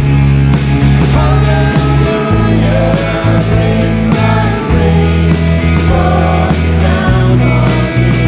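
A live worship band playing a slow rock-style song: a regular drum beat and sustained bass notes under a wavering melody line, with voices singing.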